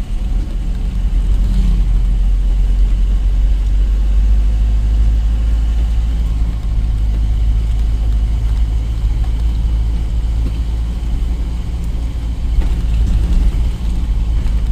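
Truck engine running steadily, with a low drone and road rumble heard from inside the cab while driving.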